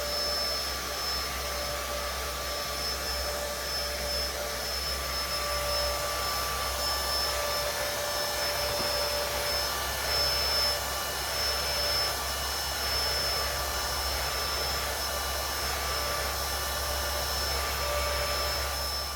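Household vacuum cleaner running steadily: a constant rushing noise with a steady high motor whine over it.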